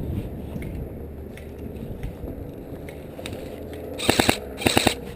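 Airsoft gun firing two short bursts of rapid clicks, about four seconds in and again half a second later.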